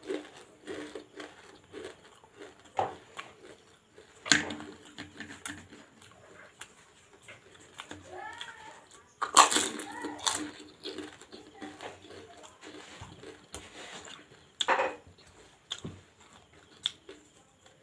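Crisp, hollow fried fuchka (pani puri) shells being bitten and chewed with a dry crunch. The loudest bites come about 4 s, 9–10 s and 15 s in, with quieter chewing between.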